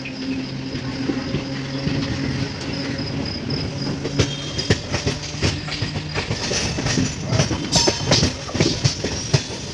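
MEMU electric train rolling along the track, its wheels clattering over rail joints and points. The knocking grows denser and louder from about four seconds in, over a steady low hum in the first half.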